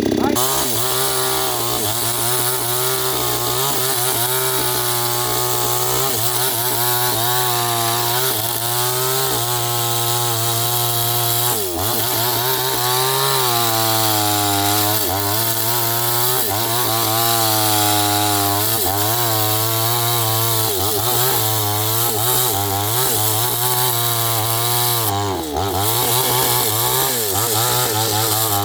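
New West 628 two-stroke chainsaw cutting into a tree, its engine pitch repeatedly dipping under load and recovering as the chain bites into the wood. Near the end the engine speed drops away.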